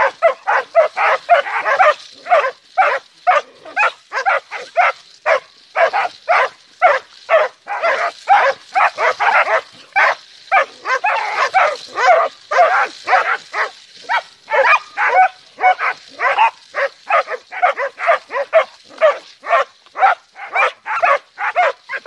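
Dogs barking rapidly and without let-up, about two or three barks a second, as they attack a porcupine.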